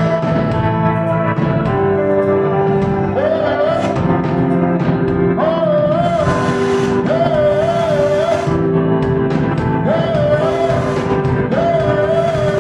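Slow worship music: held keyboard chords under a voice singing long, wavering phrases with strong vibrato.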